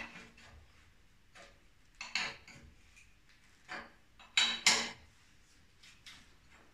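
Metal-on-metal clinks of a wrench on the rear axle nuts and chain adjusters of a moped, as its drive chain is tensioned. A handful of sharp clinks, the loudest two close together about four and a half seconds in.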